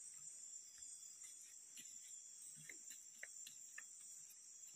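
Near silence with a faint, steady high insect drone, such as crickets or cicadas, and a few soft ticks.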